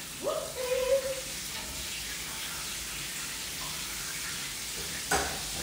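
Buttermilk-battered chicken wings frying in oil in a cast iron skillet, a steady sizzle. A short rising tone sounds near the start, and a single sharp knock about five seconds in.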